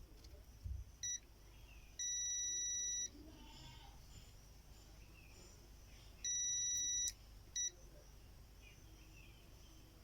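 Digital multimeter's continuity buzzer beeping four times, two short beeps and two held for about a second, as the probes touch points on a laptop motherboard during a check for shorts.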